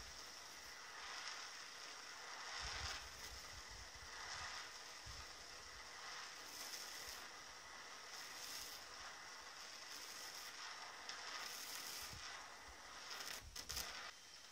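Faint steady hiss of a butane blow torch burning against an aerosol can, swelling and fading every second or two, with a few brief low rumbles now and then.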